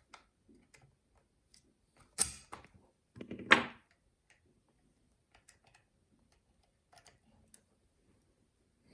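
Small metal gun parts handled and fitted during reassembly of a Haenel 310 air rifle: scattered light clicks, a sharp knock about two seconds in, and a louder clatter about a second later.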